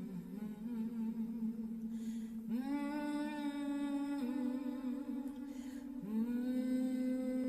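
A voice chanting long, held notes without words, stepping between a few pitches, with a short breath taken before new notes.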